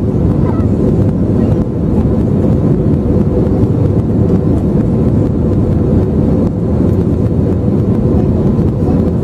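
Steady cabin drone of an Airbus A320neo in flight, from a seat over the wing: CFM LEAP-1A engine hum and rushing airflow, with a faint steady tone.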